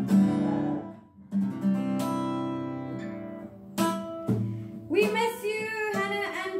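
Acoustic guitar strummed and picked, a few chords and single notes; about five seconds in a woman starts singing along with it.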